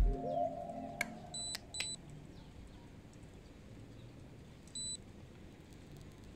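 Short, high electronic beeps: two close together about a second and a half in, and one more near five seconds, over a faint steady hiss. A thump sounds at the very start, with a gliding tone that fades out within the first second.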